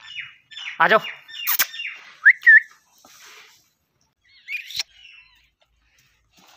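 A man whistling to call a dog: two short, loud rising whistles about two and a half seconds in, and another fainter one near the end. A short vocal call comes about a second in.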